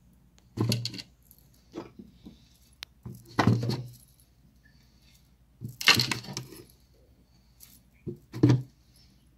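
Small whole cucumbers dropped one at a time into a glass pickling jar, each landing with a short knock against the glass and the cucumbers already inside, about five in all at uneven intervals.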